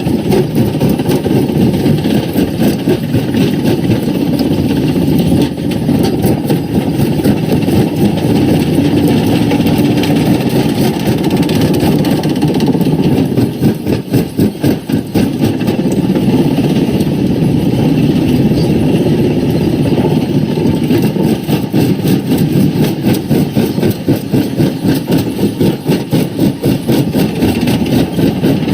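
Quarry primary rock crusher at work: a steady heavy machine drone with dense, rapid cracking and knocking of rock being broken. The knocking eases briefly about halfway through.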